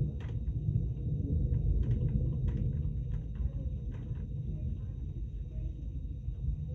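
A steady low rumble with scattered light ticks of raindrops, about one a second, as rain begins to fall.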